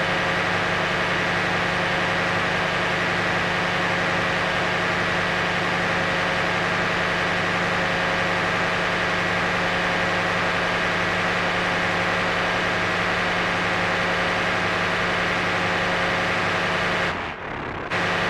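Qun mk2 drone synthesizer sounding a steady, buzzing drone of several held tones with a strong low hum. Near the end it briefly dips and thins out, then comes back.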